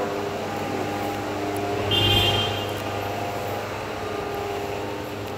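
Car engine running steadily close by in street traffic, with a brief louder swell about two seconds in.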